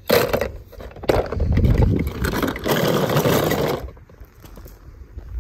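Plastic scraping and rattling as a die-cast toy car is pushed through a red plastic fire truck playset, in two loud stretches: a short one, then one about three seconds long after a brief pause.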